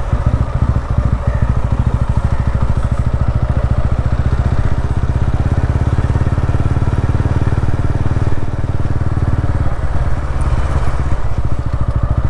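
TVS Ronin motorcycle's 225cc single-cylinder engine running steadily at low revs, its rapid, even exhaust pulses heard close up.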